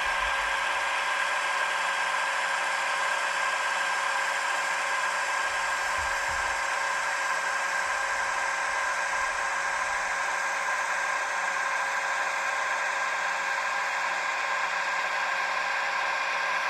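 Roco H0-scale EDK 750 model railway crane running along the track, giving a steady whir with a few fixed tones. There are two soft low bumps, near the start and about six seconds in.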